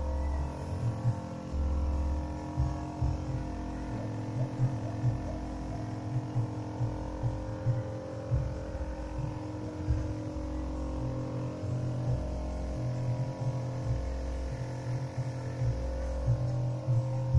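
Steady hum of a small portable air compressor running, with irregular low rumbling buffets on the microphone.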